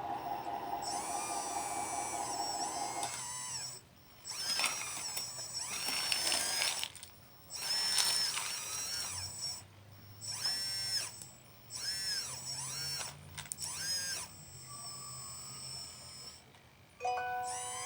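Small electric motors of a radio-controlled construction model whining in repeated short bursts, the pitch rising and falling with each move. A steady hum runs for about the first three seconds, then stops.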